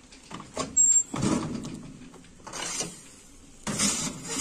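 A patterned cloth rustling as hands handle it, in a few short bursts, the loudest about a second in.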